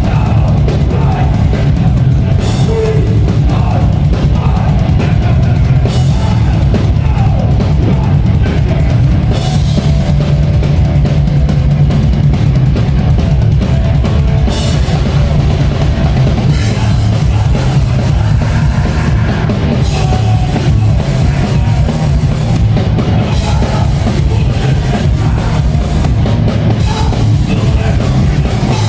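Live hardcore punk band playing loud and fast: distorted guitars and bass over pounding drums with crash cymbals, the cymbals washing more continuously from a little past halfway.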